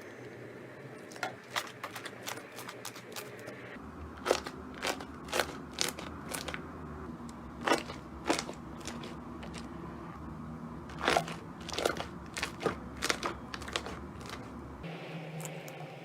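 Slime being pressed and squeezed by hand, giving irregular sharp crackles and pops.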